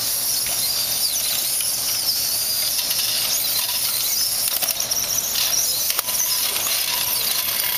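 Electric drive motors and gears of small remote-controlled combat robots whining steadily as they drive at and push against each other, with faint wavering shifts in pitch.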